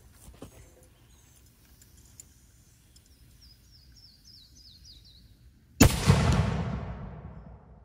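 Black powder cannon firing a lead cannonball: one sudden loud blast about six seconds in, its rumble and echo dying away over the next two seconds.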